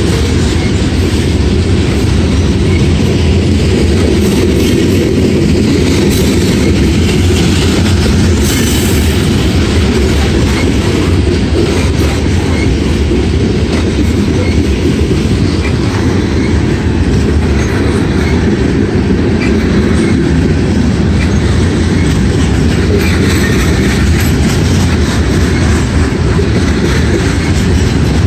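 Freight train of covered hopper cars rolling past at close range: a steady loud rumble of steel wheels on the rails, with scattered clicks from the wheels over rail joints.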